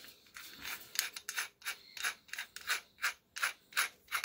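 Keyless drill chuck on an SDS hammer drill's chuck adapter being twisted by hand, giving a run of short rasping ratchet strokes about three a second as the jaws are wound. The drill motor is not running.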